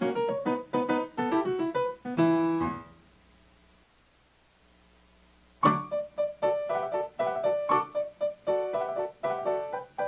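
Solo piano music: a run of notes that dies away about three seconds in, a pause of about three seconds, then the playing starts again with a strong first note.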